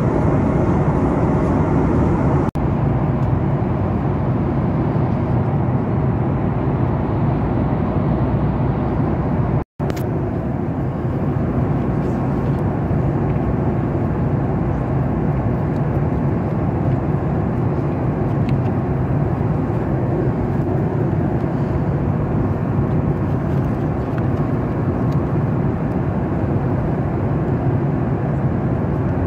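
Steady cabin noise of a Boeing 737 MAX 8 in cruise, heard from inside the cabin: the low roar of its CFM LEAP-1B engines and the airflow, with two brief breaks where the recording is cut.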